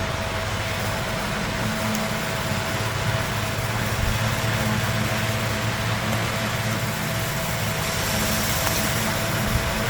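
Steady motor hum: a constant low drone with a faint high whine over a hiss, unchanging throughout.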